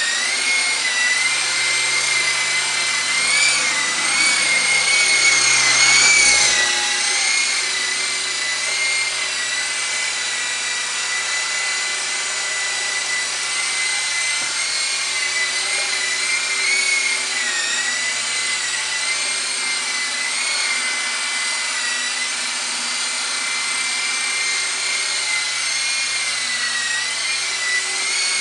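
Electric motor and rotors of a Black Shark 9006 RC helicopter in flight: a steady high whine that wavers up and down in pitch with the throttle, swelling briefly about five seconds in.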